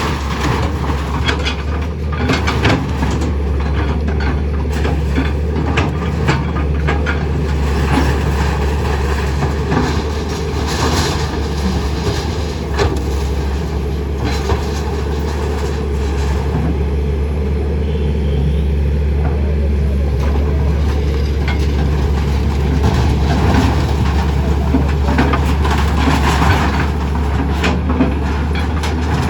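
Heavy diesel demolition machinery running with a steady low rumble, with scattered knocks and clatter of breaking material throughout.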